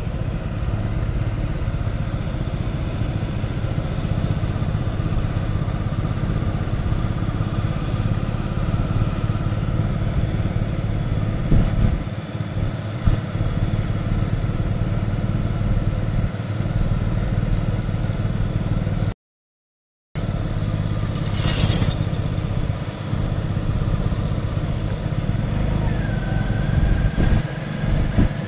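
John Deere 5310 tractor's three-cylinder diesel engine running steadily as it pulls a loaded trolley. The sound cuts out completely for about a second two-thirds of the way through.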